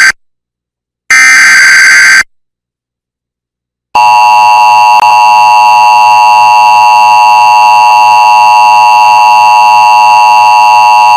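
Emergency Alert System transmission. A burst of SAME digital header data, a rapid warbling two-tone buzz, ends right at the start, and a second burst sounds from about one to two seconds in. After a short silence, the EAS attention signal, a steady loud two-tone alarm (853 and 960 Hz), starts about four seconds in and holds without a break.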